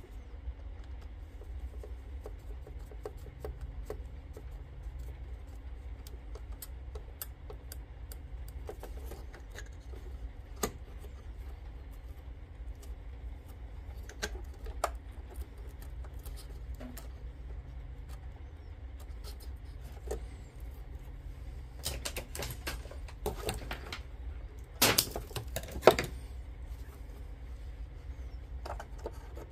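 Small clicks and taps from handling wires, a small circuit board and the vacuum's plastic housing, over a steady low hum. Two denser flurries of clicking come late on, the louder one with a sharp click near the end.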